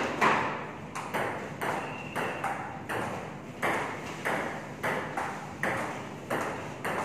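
Table tennis rally: the ball clicking sharply off the paddles and bouncing on the table in a steady rhythm, about two knocks a second.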